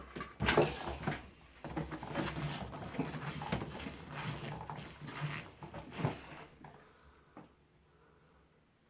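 Hands gripping and twisting a plastic fan part, trying to unscrew it: a run of irregular plastic clicks, knocks and rattles that dies away into silence near the end.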